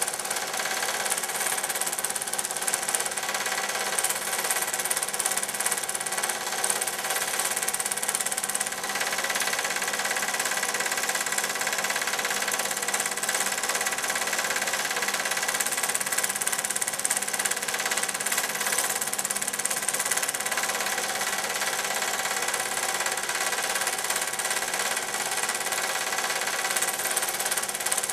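Film projector running steadily: a constant motor whir with a fast, even mechanical clatter from the film transport.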